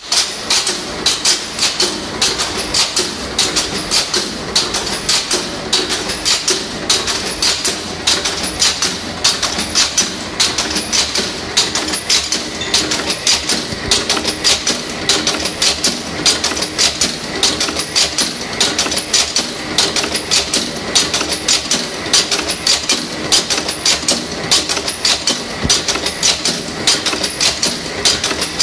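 Automatic blind (pop) rivet making machine, a cold-heading forging machine, running and heading rivet parts from coiled wire. It makes a rapid, even rhythm of sharp metallic strikes and clatter.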